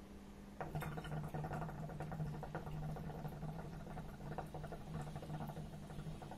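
Hookah (nargile) water bowl bubbling in rapid, continuous gurgles as smoke is drawn through the hose in one long pull, starting about half a second in and stopping abruptly just before the end.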